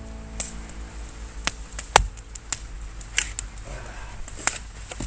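Hard firewood being split with an axe or hatchet: sharp knocks and cracks about once a second, the loudest about two seconds in.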